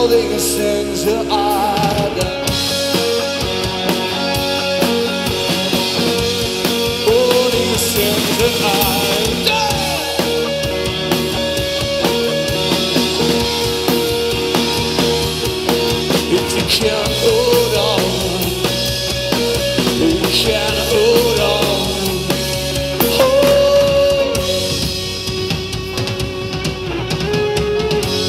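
Live rock band playing: electric guitars, bass guitar and a drum kit, loud and continuous, easing off a little in the last few seconds.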